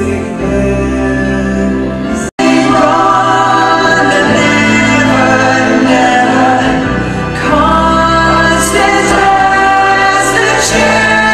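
A stage musical's cast singing together over the pit band, loud and sustained. About two seconds in, the sound drops out for an instant and then resumes louder.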